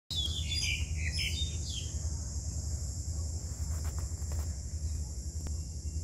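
Small birds chirping in quick, gliding notes for about the first two seconds, over a steady high insect drone and a low rumble.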